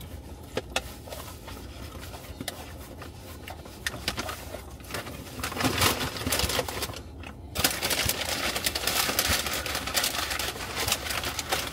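Paper takeout bag rustling and crinkling as it is handled and reached into, growing louder and denser from about five seconds in. Scattered light clicks and taps come before it.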